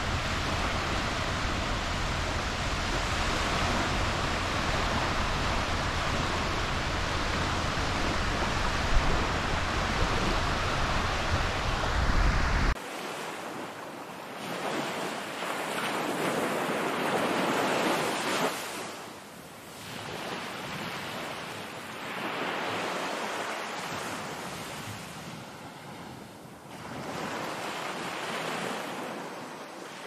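Ocean surf with wind buffeting the microphone in a deep rumble. About a third of the way in it cuts abruptly to waves alone, washing in and swelling and fading every few seconds.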